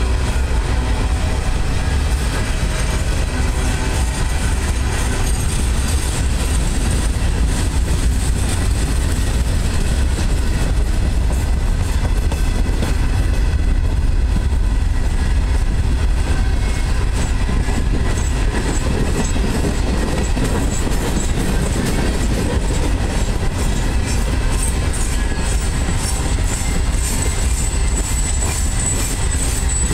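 Freight cars of a long mixed freight train rolling past: a steady, heavy rumble of steel wheels on the rails, with a thin high-pitched wheel squeal coming in near the end.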